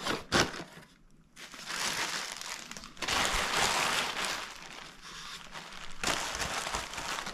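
Packaging being handled and crinkling in irregular rustling stretches, after a short quiet moment about a second in.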